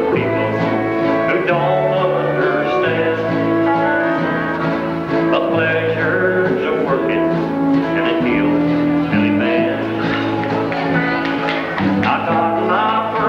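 Live country band playing a dance number: guitars over a bass line that steps to a new note every second or so.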